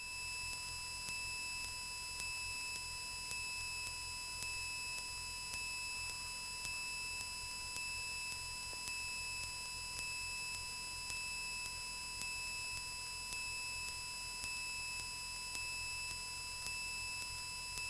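A steady, unbroken electronic tone, high-pitched, with a faint low hum under it, holding at the same pitch and level throughout.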